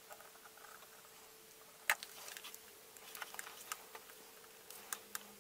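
Light clicks and taps of a paint marker tip and fingers on a hard plastic action figure during painting, the sharpest tap about two seconds in and a cluster of smaller ones after it, over a faint steady hum.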